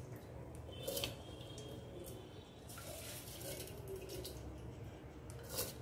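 Milk and water frothing at the boil in a steel pot on a gas stove: faint bubbling with scattered small pops and crackles of the foam. There is a sharper click about a second in and another near the end.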